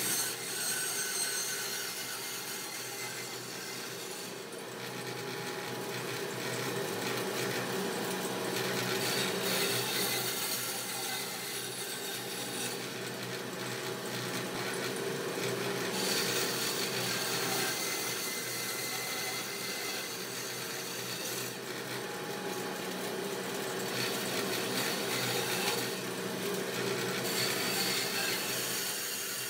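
Bandsaw running and cutting into a thick wooden block, the steady hum of the saw under the rasp of the blade in the wood, which swells and eases several times as cuts are made and backed out.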